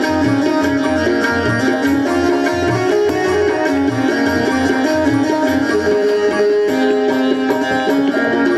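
Live Indian instrumental music: a sitar melody over a steady tabla rhythm, with held tones underneath.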